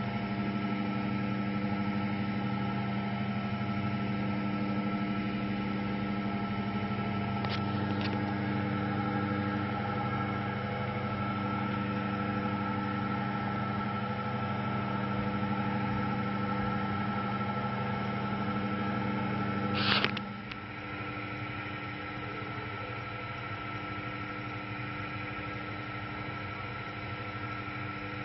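Electric potter's wheel motor humming steadily as it spins. About twenty seconds in there is a sharp click, and the lower part of the hum drops away, leaving a quieter, thinner hum.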